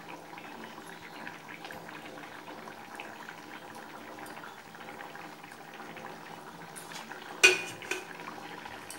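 Pumpkin kofta curry bubbling steadily as it simmers in a metal kadai. Near the end comes a sharp metal clank of pots and utensils, then a smaller one.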